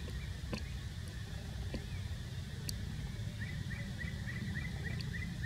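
Outdoor ambience: a steady low rumble with a few sharp clicks, and from about three seconds in a bird calling in a quick run of short, repeated chirps, about three a second.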